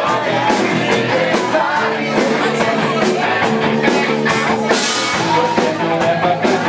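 Live rock band playing, with drums keeping a steady beat and singing over the band.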